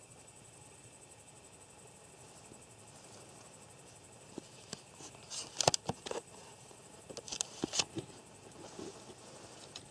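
Crickets chirping in a steady high-pitched trill, with a run of sharp rustles and clicks from movement through the grass between about four and eight seconds in.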